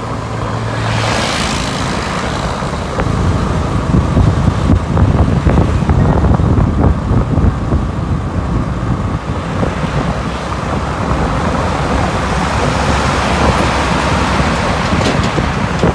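Road traffic passing close by on a highway: cars, motorbikes and a truck going past in a steady rush of tyre and engine noise, with a heavy low rumble that swells as the nearer vehicles go by.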